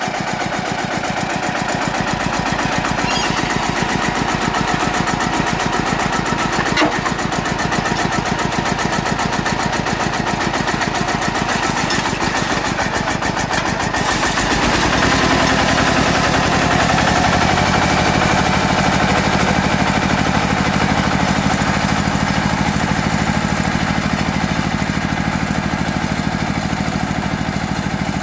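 Kubota KRT 140 small tractor's single-cylinder diesel engine running steadily with a rapid chugging beat. About halfway through it gets louder and deeper as the tractor pulls off under load, dragging the plastic-mulch laying rig along the row.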